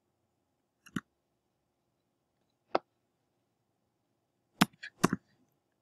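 Separate key presses on a computer keyboard: one about a second in, another near three seconds, then three quick presses near the end, over a faint steady hum.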